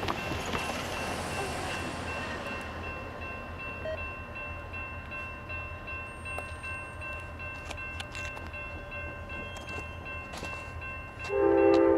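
Amtrak passenger train running through with a steady low rumble and a few steady high tones. About eleven seconds in, a loud blast of the lead P42 locomotive's multi-chime horn starts.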